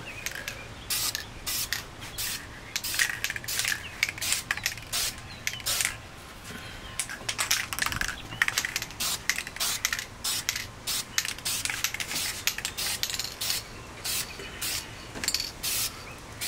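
Aerosol spray paint can hissing in many short bursts, one after another, as a coat of paint goes onto a masked-off brake caliper.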